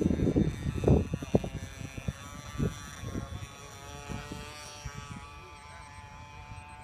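Radio-controlled model airplane's motor whining high overhead, a steady buzzing tone that wavers slightly in pitch. Wind buffets the microphone in the first second or so.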